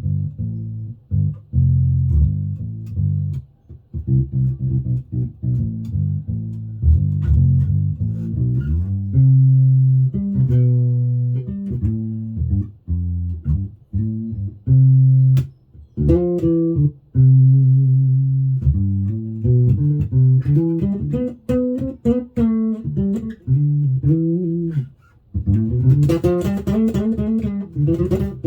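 Hammer 5-string mini electric bass played through a Warwick BC10 bass amp: a run of quick plucked notes, then longer held low notes, and brighter, sharper-attacked notes near the end.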